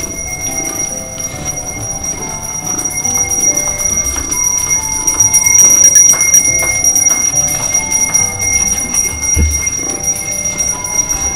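Background music: a light melody of short bell-like notes, over a steady high-pitched whine. A soft low thump about nine seconds in.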